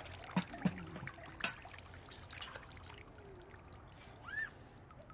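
Water trickling and being poured, fading away over the first second or so, with a few sharp knocks early on. A brief rising-and-falling squeak sounds about four seconds in.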